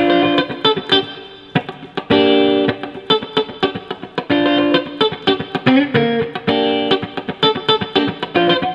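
Fender Kingfish Telecaster Deluxe electric guitar played with both pickups combined: chords struck and held about every two seconds, with quick picked single notes and muted pick strokes between them.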